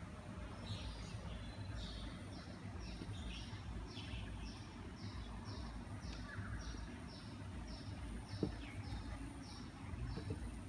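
A bird calling over and over: short high chirps, each falling in pitch, about two or three a second, over a low rumble of wind and handling noise. A single short knock sounds about eight and a half seconds in.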